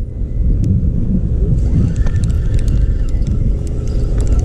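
Wind buffeting the microphone: a loud, steady low rumble, with a few faint clicks over it.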